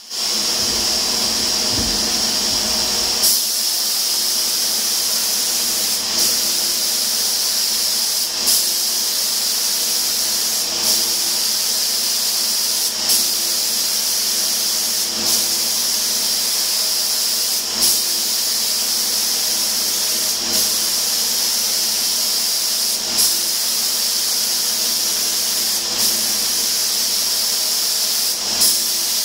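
Compressed-air spray gun with a suction-feed cup spraying paint: a loud, steady hiss of air and atomised paint, with a brief surge about every two and a half seconds.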